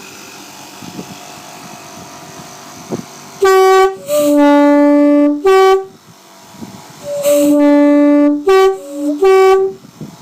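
Two-tone air horns of a Class 20 diesel locomotive sounding in short and long blasts that alternate high and low notes: a short high, a long low, a short high, then after a pause a long low followed by quick high, low, high. A steady hiss comes first.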